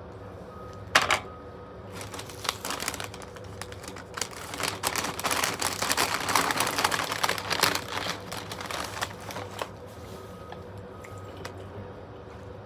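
Food packaging being handled and crinkled: a sharp knock about a second in, then several seconds of dense crackling that builds and dies away near ten seconds.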